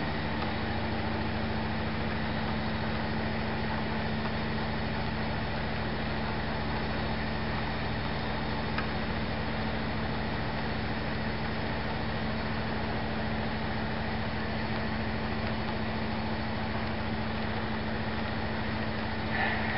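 HO scale model freight cars rolling along the track: a steady rolling noise of the wheels on the rails, with a constant low hum.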